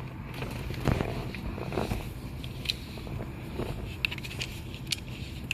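Small plastic clicks and scrapes as the volume knob of a Kenwood car stereo is worked off its shaft by hand, with a sharper click about a second in, over a low steady hum.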